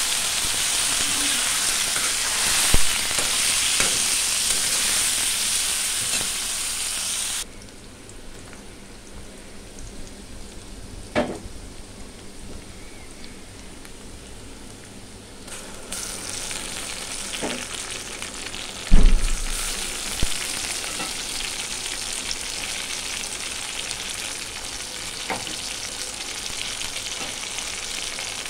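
Hot oil sizzling in an aluminium pan, first with spiced vegetables being stirred and later with sliced onions frying. The sizzle drops off sharply about a quarter of the way in and comes back just past halfway, with a few knocks of the spatula against the pan, the loudest about two-thirds of the way through.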